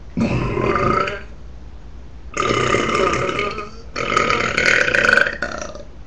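A person belching loudly, three times: a short belch about a second long, then two longer, drawn-out ones back to back.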